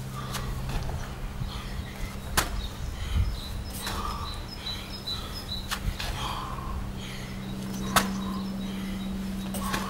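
A man doing burpees on a dirt-and-gravel path: scuffs and landings of hands and feet on the ground, with three sharp clicks, the loudest about eight seconds in. A steady low hum underlies it, and faint bird chirps come in the middle.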